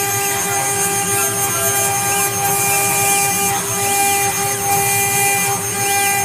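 CNC router spindle engraving a stone slab under a water coolant spray: a steady, high machine whine over a hiss of cutting.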